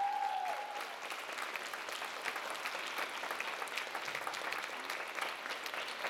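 Audience applause: many hands clapping steadily, with a long sustained "woo" from the crowd that fades out about a second in.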